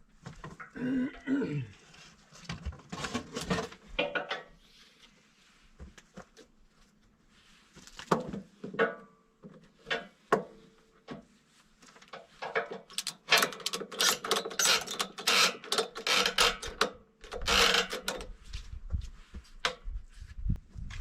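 Irregular knocking and clattering of hard objects, with a dense run of sharp taps in the second half.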